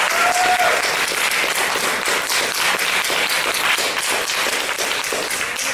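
Audience applauding steadily in a large room, the clapping thinning slightly near the end.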